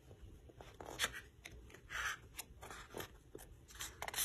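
Faint rustles and scrapes of a hand moving on a paperback picture book's cover, ending with the cover being lifted and bent open.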